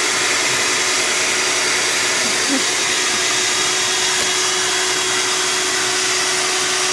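Bee vacuum running steadily with a constant hum, sucking bees off the honeycomb.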